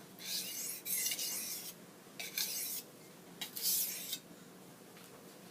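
Steel knife blade scraped across an oiled sharpening stone in four strokes, then stopping a little after four seconds in: straight-across finishing strokes that take the burr off the edge.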